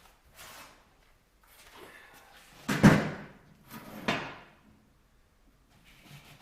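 Sheet-metal parts being handled on the bench: a few rustles and knocks, the loudest a sharp metal knock about three seconds in, with a smaller one a second later.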